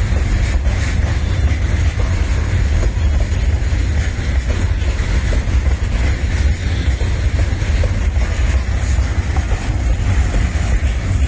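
Container wagons of a freight train rolling past close by: a steady, loud rumble of wheels on rail.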